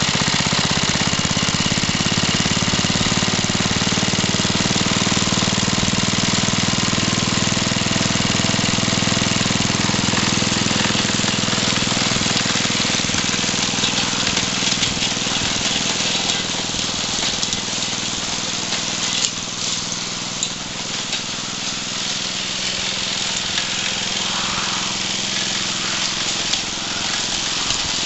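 1966 Briggs & Stratton 3.5 hp single-cylinder four-stroke mower engine running steadily, warmed up, with a fast even firing beat. It grows fainter in the second half as the mower is pushed away.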